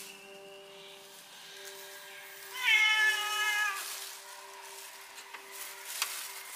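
A kitten meows once, a loud high-pitched call about a second long midway through.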